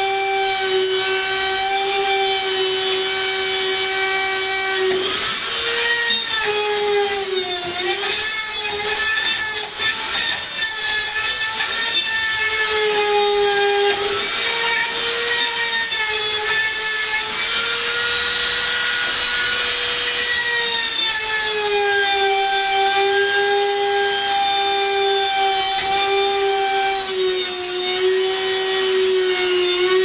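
Corded Dremel-type rotary tool running at high speed and cutting into the plastic hub of a dryer blower wheel stuck on the motor shaft. It gives a steady whine with a gritty grinding edge. From about five seconds in, the pitch sags and recovers several times as the bit bites into the plastic.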